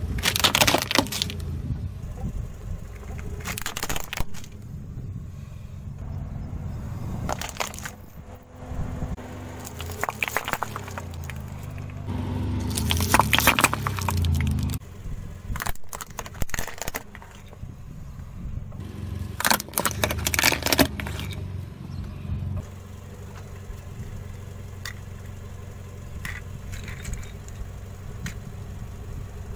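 A car tyre rolling over and crushing plastic toys and plastic bottles one after another: a series of sharp cracks and crunches of breaking plastic over a car engine's steady low running.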